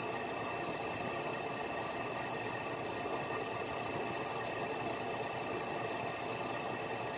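Fishing boat's engine running steadily, a constant mechanical drone with a few fixed tones over a dense rush of noise.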